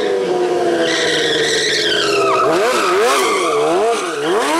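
Stunt motorcycle's engine revving hard while its rear tyre spins and squeals on the asphalt in a drift turn. A high tyre squeal dominates the first half, then the revs rise and fall about twice a second.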